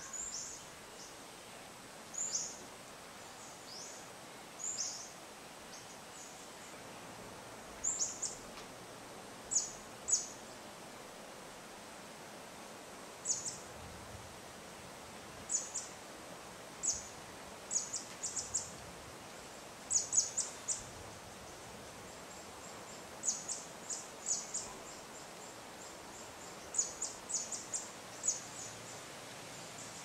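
Outdoor tropical ambience: small birds giving high, thin chirps in quick clusters of two to four, every few seconds, over a steady soft hiss of light wind.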